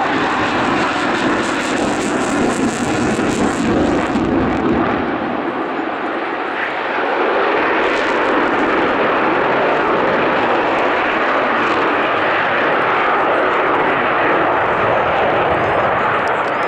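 Loud, steady jet engine noise from an F-16 fighter flying a display pass, easing slightly around six seconds in.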